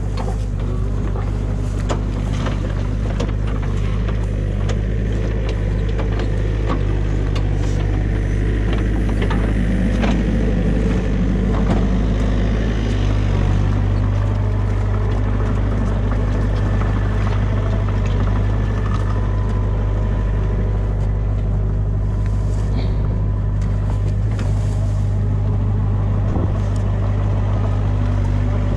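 Mini excavator's diesel engine running steadily close by, a constant low drone, with scattered light clicks and knocks over it in the first half.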